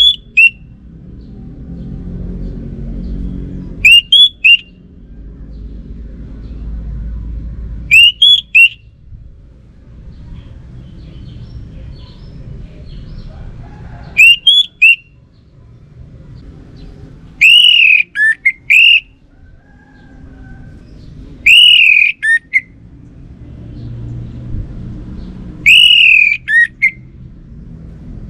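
Orange-headed thrush singing: loud, short whistled phrases of quick rising and falling notes, repeated every three to four seconds, over a low, steady background noise.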